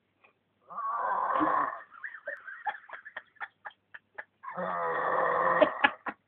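A man snoring loudly in his sleep: two long rasping snores about three and a half seconds apart, with short clicks in the pause between them.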